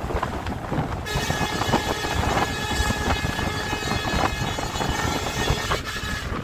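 Wind buffeting the microphone on the open roof of a moving vehicle, over a steady road rumble. From about a second in, a sustained high tone with many overtones holds for about five seconds, then stops.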